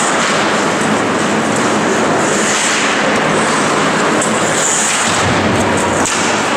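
Loud, steady din of an ice hockey rink during play: a dense rushing noise with no distinct single events standing out.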